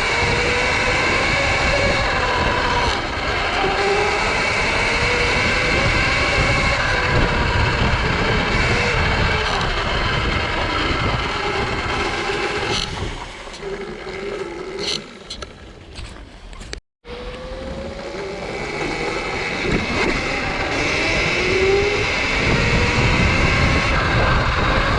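Sur-Ron electric dirt bike being ridden: the electric motor's whine rises and falls with speed over a loud rush of wind and tyre noise. The noise eases for a few seconds past the middle, breaks off in a brief dropout, then builds back up.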